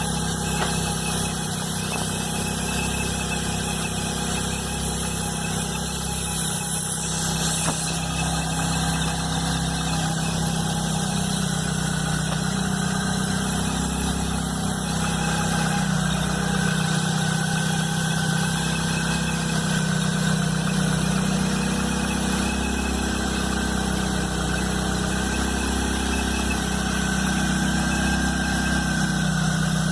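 Chevrolet S10 Blazer engine running steadily at idle, a low hum with a faint high whine over it. This is the unusual noise that started after the timing belt and alternator belt were replaced.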